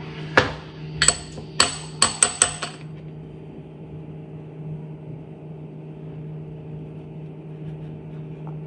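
Metal spoon clinking against a small glass bowl while scooping out chutney: about seven sharp, ringing clinks in the first three seconds, then only a low steady hum.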